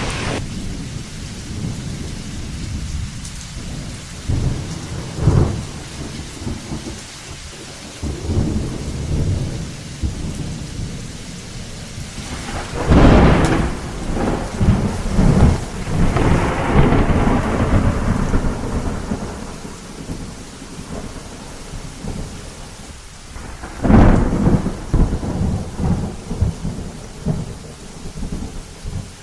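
Thunderstorm with steady rain and rolling thunder. There are two loud claps of thunder, one about thirteen seconds in and another about eleven seconds later.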